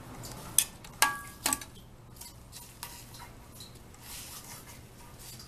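Three sharp metallic clinks about half a second apart, the middle one ringing briefly, then a few faint small taps and handling noise.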